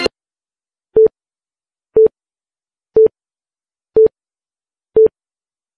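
Countdown timer sound effect: five short electronic beeps on one steady tone, one each second, with silence between them.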